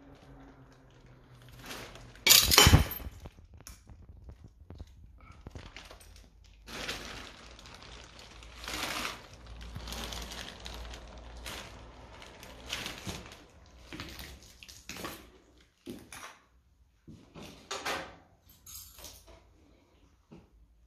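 A loud, sharp clatter of hard material about two and a half seconds in, followed by irregular scrapes and crunches of someone moving over debris in a derelict room.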